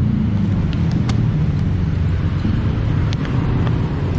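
Steady low rumble of road traffic passing close by, with a few light clicks scattered through it.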